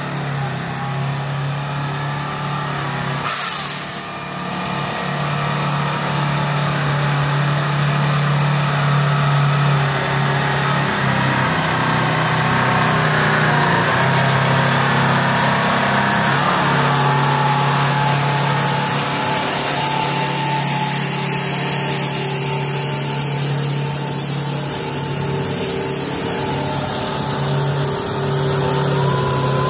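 Heavy diesel truck engine running steadily, with a brief sharp noise about three seconds in.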